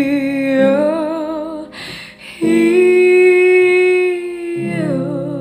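A young woman singing long, held notes with vibrato, with a quick breath about two seconds in before the next sustained note.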